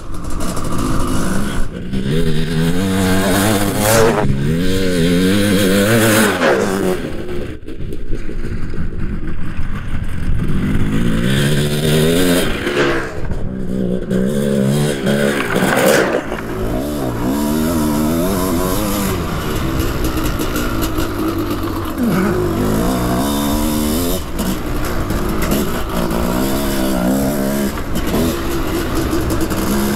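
A custom 700cc two-stroke motocross bike's engine being ridden hard, revving up and backing off over and over, its pitch climbing and falling every second or two. In the second half a steady rush of wind noise runs under it.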